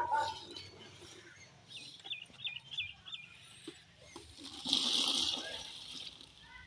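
A small bird chirps five times in quick succession, then a brief rushing noise, the loudest sound here, comes about five seconds in.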